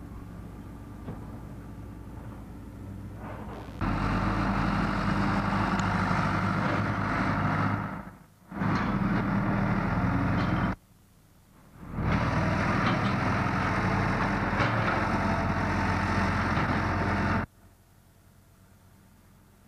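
Diesel engines of heavy construction machinery running steadily. The sound is quieter for the first few seconds, then comes in three loud stretches that start and stop abruptly.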